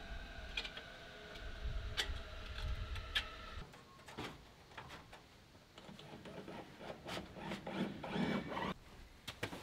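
A small motor running steadily, with a few sharp clicks, stopping about three and a half seconds in. Then scattered clicks and scraping, handling noises.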